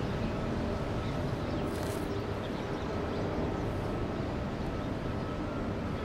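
Steady open-air background noise: a low, even rumble with a faint hum running through it.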